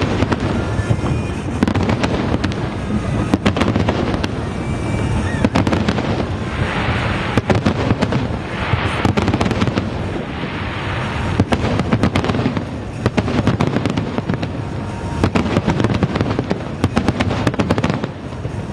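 Aerial fireworks display: a rapid, continuous run of shell bursts, one sharp bang after another, with thick stretches of crackle in the middle where glitter shells go off.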